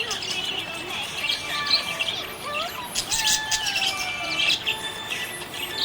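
Budgerigar chirping and warbling: a quick run of short chirps mixed with whistled notes that slide up and down in pitch.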